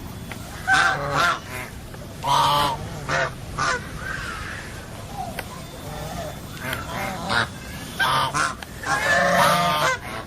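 Domestic geese honking: a run of loud, harsh honks, several in quick succession, with fainter short calls from other birds in between.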